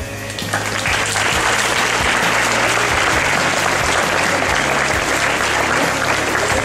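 Audience applauding, swelling about half a second in and holding steady.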